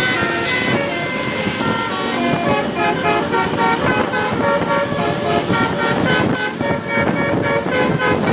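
Telolet Basuri bus horn, a multi-tone musical horn, playing a fast melody of short notes at changing pitches over bus engine and traffic noise; the notes turn quicker and more clipped about two and a half seconds in.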